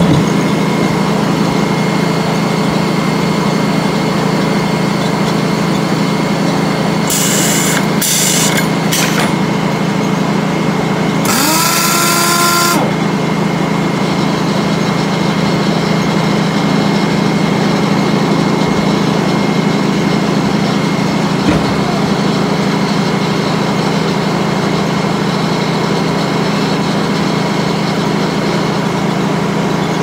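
Circular sawmill machinery running steadily with no log in the cut: the big head saw blade spinning and its drive and conveyor humming. A few short hissing bursts come about seven to nine seconds in. About eleven seconds in, a horn-like tone rises in pitch and holds for a second or so.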